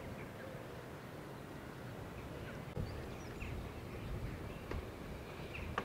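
Outdoor ambience: wind buffeting the microphone in low gusts that pick up about three seconds in, with a few short, scattered bird chirps.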